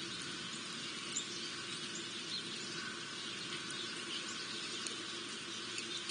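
Faint, scattered chirps of small birds at a feeder over a steady background hiss and low hum.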